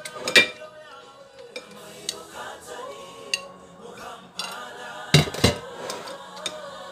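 A few sharp knocks of kitchen dishes or utensils, one near the start and two in quick succession about five seconds in, over a background song.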